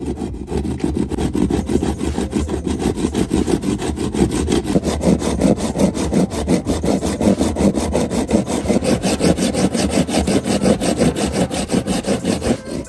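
Hand saw cutting through a wooden block with fast, steady back-and-forth strokes, the teeth rasping through the wood.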